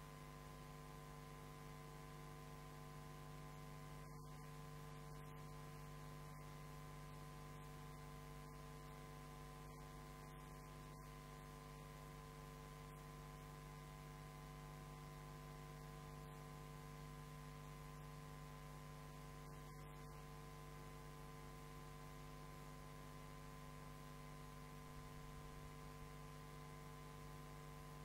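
Near silence: a faint, steady electrical mains hum with no speech.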